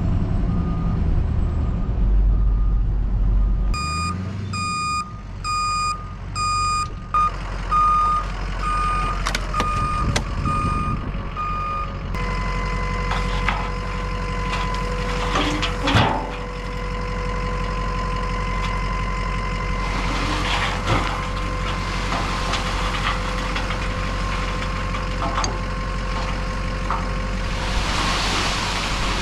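Ford F550 dump truck backing up, its reversing alarm beeping steadily over the engine. About twelve seconds in the beeping stops and a steady whine starts, the dump body's hydraulic pump running to tip the load of sand, with one sharp knock a few seconds later.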